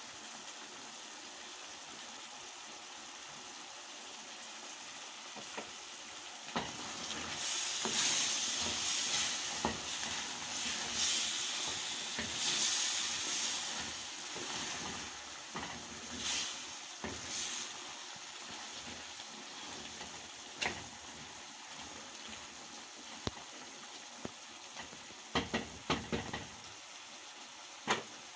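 Liver stew sizzling in a pot on the stove, a steady hiss. From about six seconds in, a spoon stirs it for several seconds, louder with scraping and clatter. A few sharp clicks come near the end.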